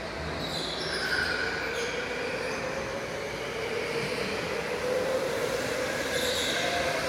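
Electric racing go-kart running at race pace: a steady motor whine that wavers slightly in pitch, with tyres squealing briefly about a second in and again near the end.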